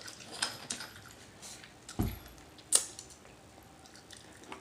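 Close-miked eating sounds: scattered wet lip smacks and mouth clicks while chewing noodles, with one sharper smack near the middle and a soft low thud just before it.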